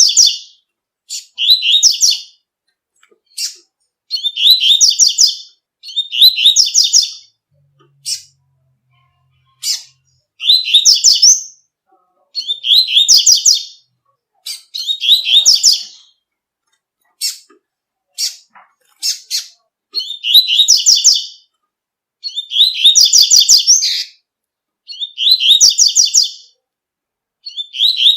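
Double-collared seedeater (coleiro) singing the tui-tui song: a rapid, high-pitched phrase of about a second, repeated roughly every two seconds, with single sharp chip notes in some of the pauses.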